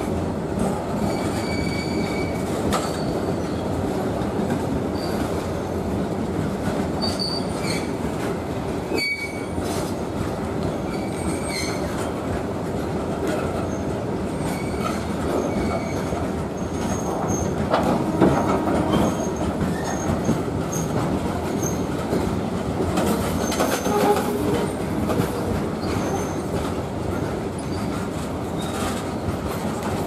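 Loaded BCNA covered freight wagons rolling past at close range: a continuous rumble of steel wheels on the rails, broken by short high-pitched wheel squeals every few seconds.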